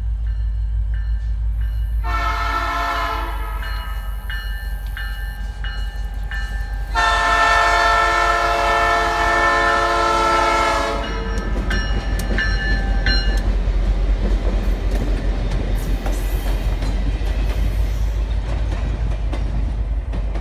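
Diesel locomotive's air horn sounding for a grade crossing: a long blast about two seconds in and a louder, longer one from about seven to eleven seconds in. Then the locomotive and freight cars rumble past over the rails, with a steady low rumble underneath throughout.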